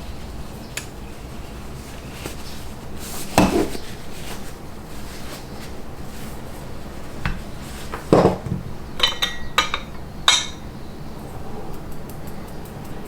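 Dishes and cutlery being handled: two dull knocks, then a quick run of ringing metallic clinks near the end.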